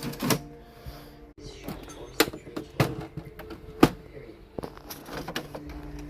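Home printer working: its mechanism clicks and clunks sharply a dozen or so times at uneven intervals, with the feed motor's steady hum dropping out in the middle and coming back near the end.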